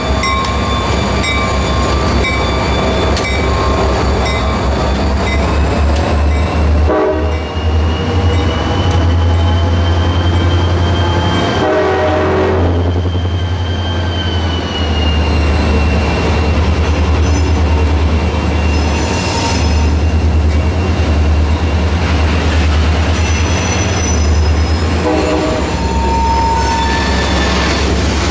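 Slow freight train passing close by: the diesel locomotives' engines give a loud, steady low rumble, then covered hopper cars roll past. High-pitched wheel squeal comes and goes, rising and falling in pitch between about 8 and 14 seconds in.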